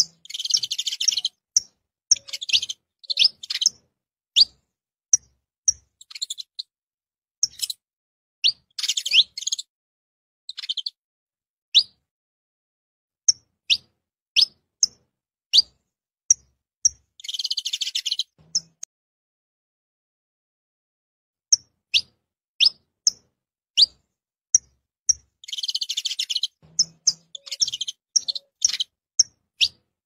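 Saffron finch (canário-da-terra) calling and singing: a string of short, high chirps broken by several brief bursts of rapid twittering song, with a pause of a few seconds about two-thirds of the way through.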